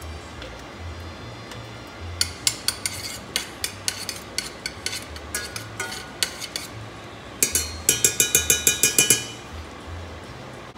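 Metal spoon clinking and scraping against a glass sofrito jar and a stainless saucepan while sofrito is spooned into olive oil and stirred, with scattered ringing clinks, then a quick run of about ten taps near the end.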